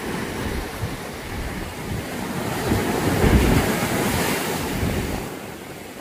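Rough, storm-driven sea surf breaking and washing over rocks and pebbles. It swells to a loud rushing wash about halfway through, then recedes. Wind buffets the microphone.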